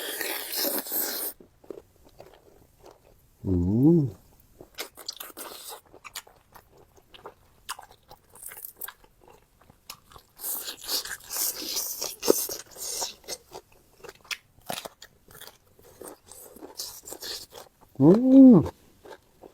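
Close-miked chewing and crunching of squid and fresh raw vegetables, with irregular crisp crackles and bites. Twice, about four seconds in and near the end, a short hum from the eater rises and falls in pitch; these are the loudest sounds.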